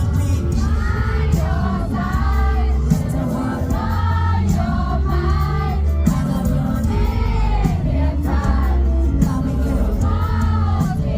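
Live K-pop performance: a male singer singing over a loud backing track with heavy bass, heard from the crowd.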